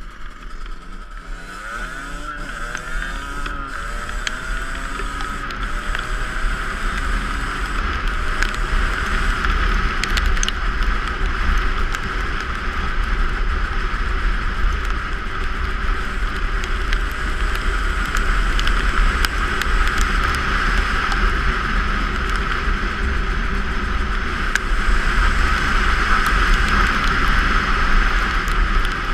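Two-stroke dirt bike engine being ridden hard off-road, its revs rising and falling in the first few seconds, then running at a steady high note, with wind rumbling on the microphone.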